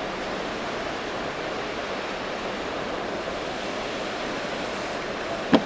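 Steady rushing background noise, with one sharp knock near the end.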